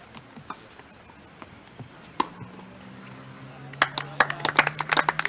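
A sharp knock about two seconds in, then hand clapping from a few spectators for about a second and a half near the end.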